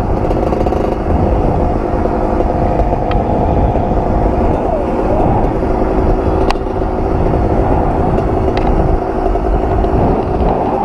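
Two-stroke 125 cc dirt bike engine running at a steady pace under way, with a brief dip in pitch about five seconds in and a few sharp clicks.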